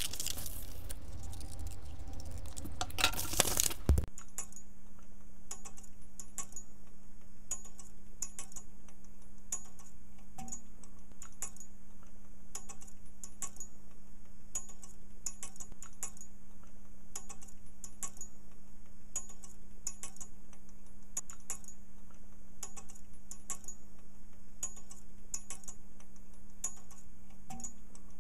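Stiff paper or card rustling and being cut, with a few sharp cracks. About four seconds in, this gives way abruptly to a clock ticking steadily, with a low steady hum beneath.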